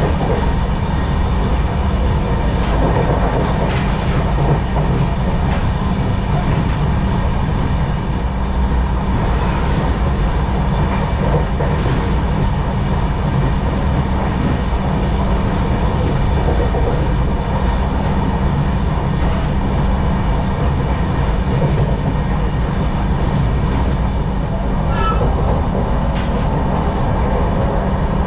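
Passenger train running at speed, heard from inside the coach: a steady, even rumble with a few faint clicks from the wheels.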